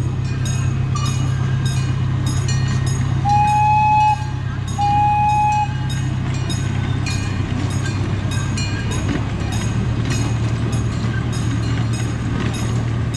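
Miniature amusement-park train passing, with a steady low engine hum and a rapid, regular clicking from the running gear. It gives two short toots about three and five seconds in.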